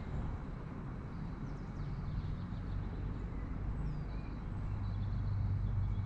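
Low rumble with faint bird chirps and whistles over it; a steadier low hum sets in about four and a half seconds in.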